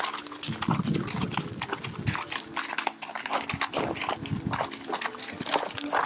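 Horses' hooves clip-clopping at a walk on a stony dirt trail: irregular, closely spaced clicks and knocks.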